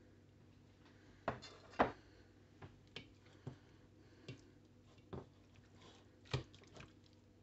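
Short, irregular wet squelches and taps as raw steak is pressed and turned by hand in an oily herb marinade, with a spatula working in the bowl. About nine sounds in all, the loudest about two seconds in and another near the end.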